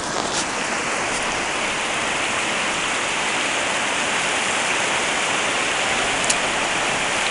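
Steady hiss of rushing water, with no rhythm or change in level.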